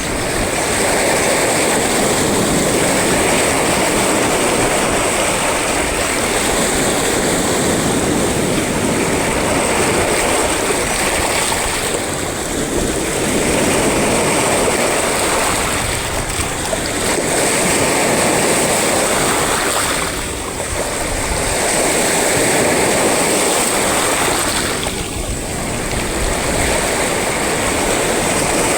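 Sea waves breaking and washing in a continuous loud rush that eases and swells again every few seconds.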